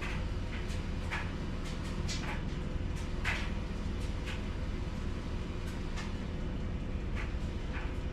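Laundry machines running with a steady low hum. Short high chirps or squeaks come irregularly over it, about a dozen in all.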